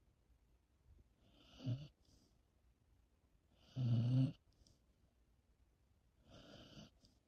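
Snoring in deep sleep: three rasping snores about two and a half seconds apart, the middle one the loudest.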